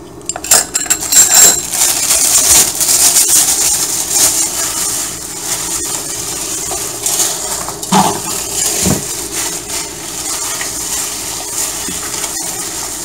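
A hand in a plastic glove kneading and mixing a bowl of ground shrimp and pork paste: a steady wet, rustling churn with small clicks, and a couple of louder knocks about eight seconds in.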